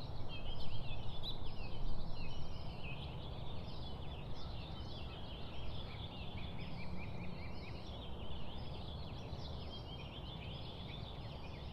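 Many small birds chirping and chattering at once in a dense, continuous chorus, over a steady low background rumble.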